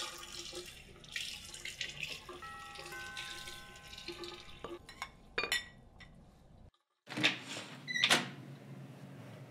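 Water running from a tap, with a few held musical tones under it, cut off abruptly. Then two sharp knocks about a second apart on a wooden door with frosted glass panels.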